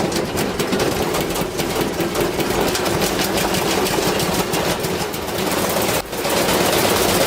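Engine running steadily with a rapid, rough clatter. It drops out briefly about six seconds in.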